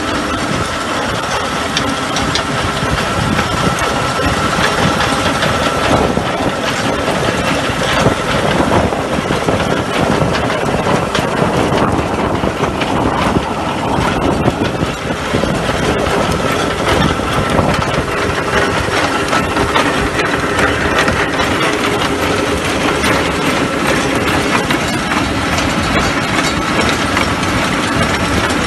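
Tractor engine running with the dense mechanical clatter of a PTO-driven Gramegna crankshaft spading machine as its spades dig in and throw soil back. A steady high whine sits over the clatter.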